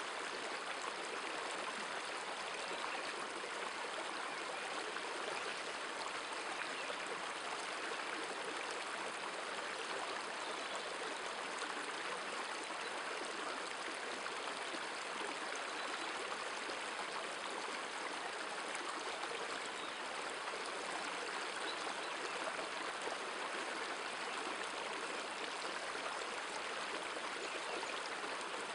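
River water flowing steadily over a stony bed: an even hiss of current with no separate splashes.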